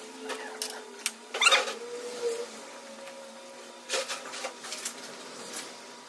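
Metal alternator parts being handled and fitted by hand: scattered clicks and scrapes, loudest about one and a half seconds in and again about four seconds in, over a faint steady hum.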